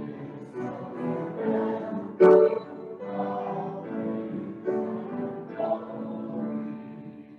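Slow hymn music of held notes, with one sharp loud accent about two seconds in.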